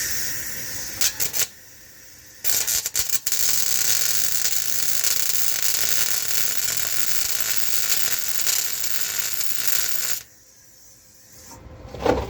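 Welding arc crackling against steel as crossmember mounts are welded on: a short weld of about a second and a half, then after a brief pause a steady bead of about seven and a half seconds that stops suddenly.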